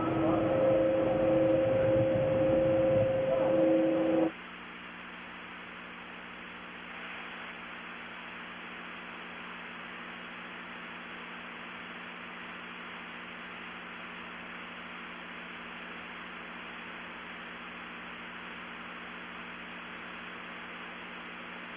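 A loud rushing noise with two steady tones cuts off abruptly about four seconds in. It leaves the steady hiss and faint low hum of an open audio feed with nothing on it.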